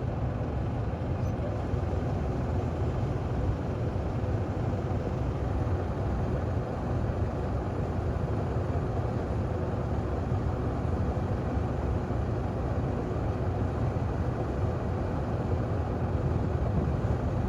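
Combine harvester running steadily under load, a continuous deep engine and machinery drone with a faint steady hum above it.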